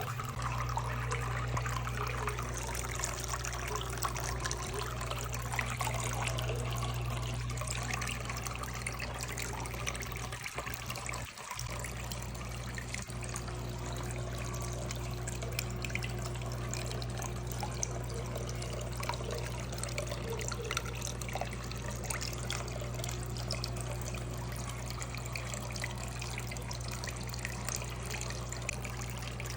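Water trickling steadily down a small concrete tabletop waterfall fountain, recirculated by its pump, with a steady low hum underneath. The sound drops out briefly about eleven seconds in.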